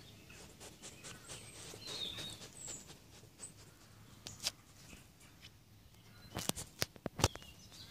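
Eurasian badger feeding on peanuts with its snout at the microphone: faint rustling, then a quick run of sharp clicks and knocks from about six seconds in, loudest near the end.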